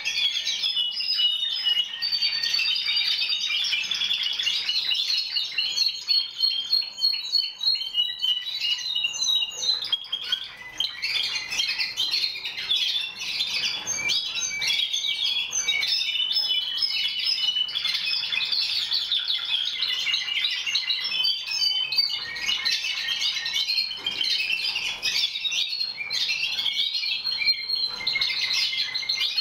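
Many Timbrado Español canaries singing at once, a dense continuous chorus of overlapping fast trills and rolls.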